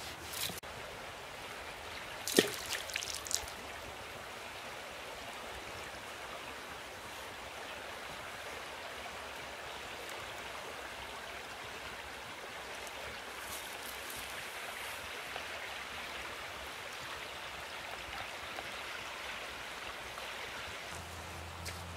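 Steady rush of a river flowing, with a few sharp clicks and knocks about two to three seconds in.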